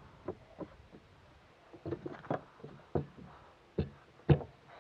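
Irregular knocks and bumps on a fishing boat, about eight short ones with the loudest a little after four seconds in.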